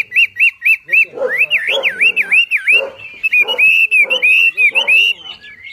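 Wambi songbird singing loudly. It gives a quick run of short whistled notes, then a string of swooping whistles that dip and rise several times a second, over harsh, rasping lower notes. Near the end the notes go back to a flatter, chattering series.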